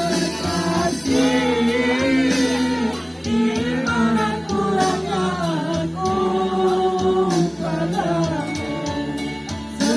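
Singing over instrumental accompaniment: a melody of held and gliding sung notes above a steady bass line.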